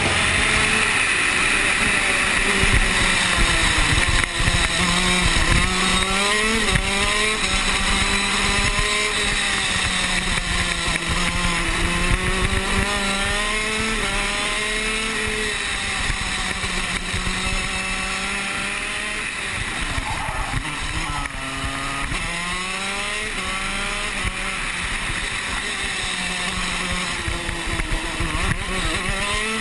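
Two-stroke shifter kart engine revving hard and buzzing. Its pitch climbs in repeated rising sweeps as it pulls through the gears and drops back at each shift or lift.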